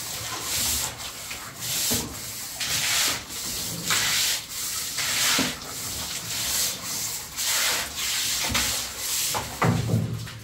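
Stiff-bristled broom scrubbing a wall: rhythmic rasping strokes about once a second, with a thump near the end.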